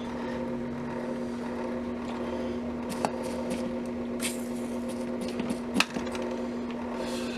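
Wire soldering at a bench: a steady hum runs under a few sharp clicks and taps of tools and wire, the loudest just under six seconds in. Brief hisses come about four seconds in and near the end, as the iron meets the fluxed wire.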